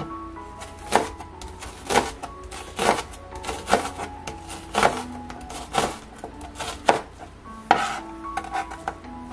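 Raw potato being grated by hand on a box grater: short rasping strokes, about one a second.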